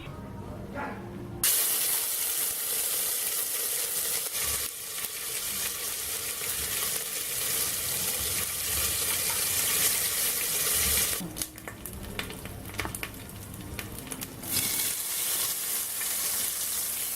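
Blended seasoning sizzling in hot oil in a pressure-cooker pot, with occasional stirring. The sizzle starts suddenly about a second and a half in, dies down for a few seconds about two-thirds of the way through, then comes back.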